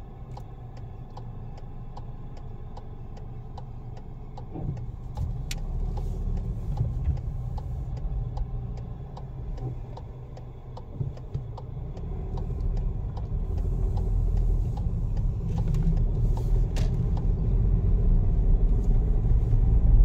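Car interior noise while driving slowly: a low engine and tyre rumble, with the turn-signal indicator ticking steadily, about two to three ticks a second. The ticking stops about halfway through, and the rumble grows louder over the second half.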